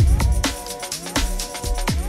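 Electronic background music with a steady beat: a deep drum about once a second under synth notes that glide up and hold.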